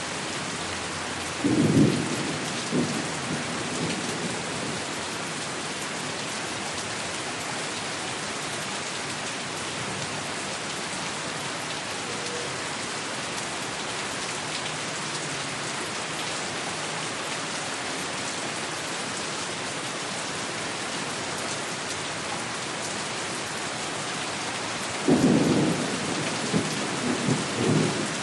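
Steady rain hiss with two low rolls of thunder, one about a second and a half in and another near the end.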